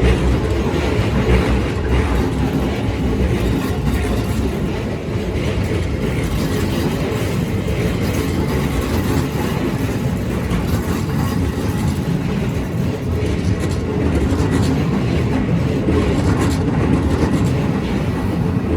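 Keikyu Line electric train passing close by over a level crossing, its wheels clattering over rail joints with a run of clicks. The sound comes in loud at the start and stays loud and steady.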